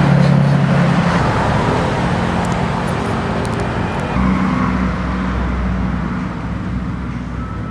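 Motor vehicle engines running: a steady engine hum that fades in the first second or so, and another that comes in about four seconds in and slowly dies away.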